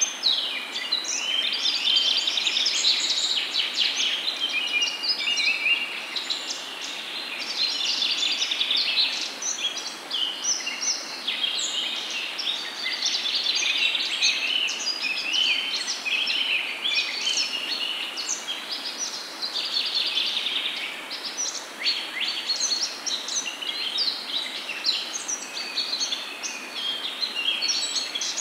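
Peyaju, onion and lentil fritters, sizzling in hot oil in a frying pan: a dense, continuous crackle of small pops as the batter fries.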